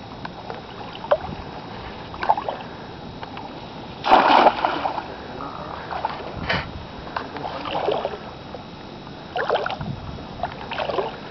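Shallow pond water splashing and sloshing around wading legs and nets, in a series of short splashes. The loudest splash, about four seconds in, is a cast net slapping down onto the water.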